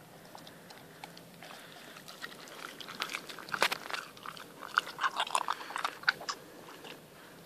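An Appenzell Mountain Dog cross chewing a mouthful of raw meat: a quick run of crunching and clicking teeth starts about two seconds in and stops near the end.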